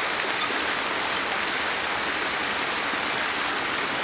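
Steady rushing of flowing river water, an even hiss that holds without change.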